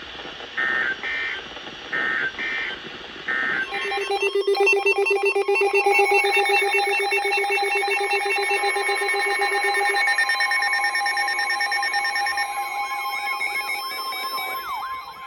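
Emergency Alert System signalling: three short, buzzy bursts of digital alert data about a second apart, then a loud, steady attention-signal alarm of several layered tones. Some of the tones drop out in the later seconds, leaving a single steady tone with a warble near the end.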